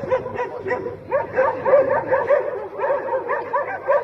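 Dogs barking and yelping rapidly, about three or four short calls a second, as they attack a bear cub.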